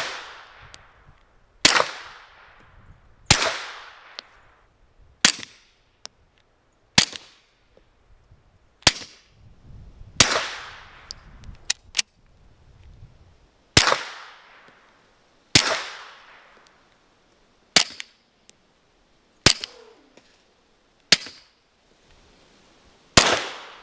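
Glock 48 pistol firing 9mm through suppressors, single shots roughly every 1.5 to 2 seconds, about a dozen in all, each a sharp crack with a short ringing tail. The first shots go through a SilencerCo Omega 9K, supersonic and then subsonic rounds; from about halfway on, supersonic rounds go through a second suppressor.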